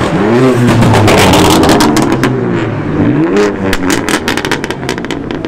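A BMW performance car accelerating hard. The engine revs up, drops back at a gear change, then revs up again, with a burst of sharp crackles in between.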